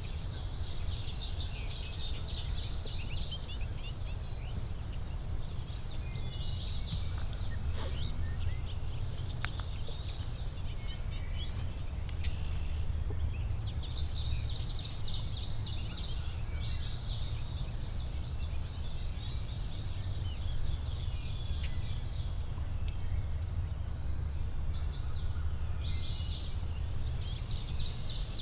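Small birds singing repeated rapid, high trills, each phrase lasting a second or two, over a steady low rumble. There is a single click about eight seconds in.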